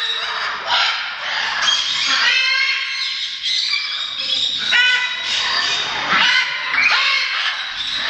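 A roomful of captive parrots, macaws and smaller parrots, squawking and chattering over one another without a break, with a fast stuttering call about two to three seconds in.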